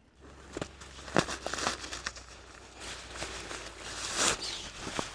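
Crinkly rustling of material being handled, with scattered light clicks and a louder rustle about four seconds in.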